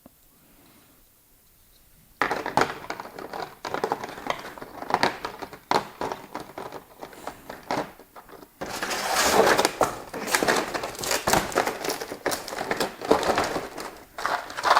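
Plastic packaging crinkling and crackling as it is handled, starting about two seconds in and getting louder about halfway through.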